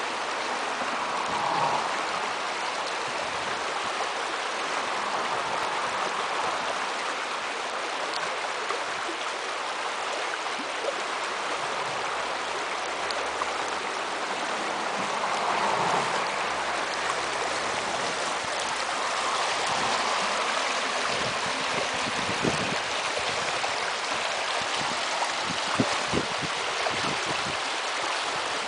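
Shallow torrent running fast over stones and gravel: a steady rush of flowing water, with a few brief knocks late on.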